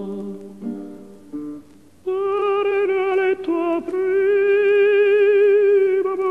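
Vintage Italian love-song recording: plucked string accompaniment notes for about two seconds, then a male singer holds one long note with vibrato over the accompaniment.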